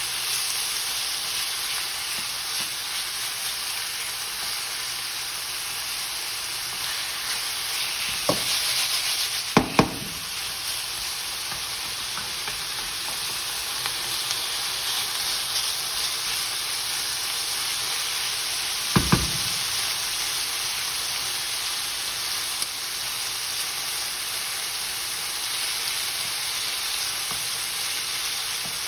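Pieces of chicken breast sizzling in hot oil with garlic, ginger and onion, being stirred in the pan. A utensil knocks sharply against the pan a few times about a third of the way in, and twice more about two-thirds of the way in.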